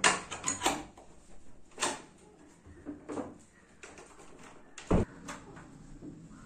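Wooden door being unlatched and opened: a run of sharp clicks and knocks, with one heavier thump about five seconds in.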